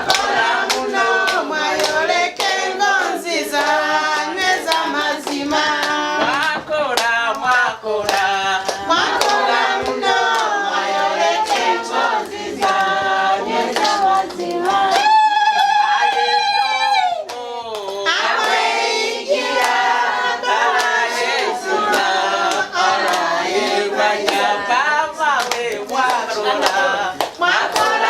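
A group singing together with hand clapping keeping time, and one voice holding a long high note about halfway through.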